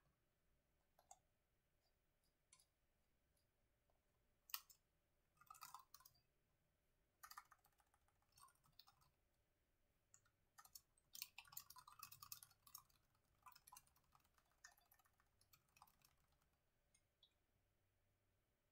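Fingers typing on a low-profile chiclet computer keyboard: faint, irregular key clicks in bursts, busiest in the middle and tailing off near the end.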